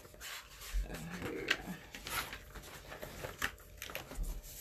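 Sheets of paper being handled and shuffled: scattered rustles and light clicks, with a brief low hum about a second in.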